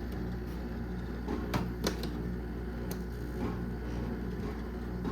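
Window air conditioner running with its compressor and fan on: a steady low hum with a wavering beat, and a few sharp rattling clicks between about one and a half and three seconds in.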